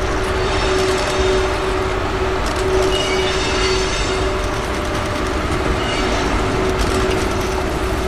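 Cassiopeia sleeper train being pushed by EF81 electric locomotive, rolling past at slow speed with a steady rumble of wheels on rails. There is a steady tone throughout and intermittent high wheel squeal, strongest about halfway through.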